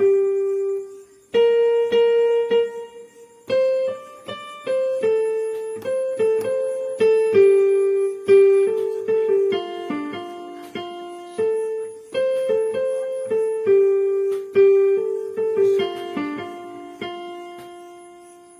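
Ringtone melody played on an electric piano or keyboard: single struck notes one after another, each dying away, with a short break about a second in. It ends on a long note that fades out.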